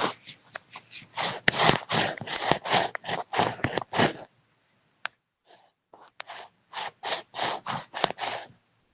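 Rapid rhythmic scraping strokes, about three or four a second. They stop for about two seconds just after the halfway point, then resume for a short run.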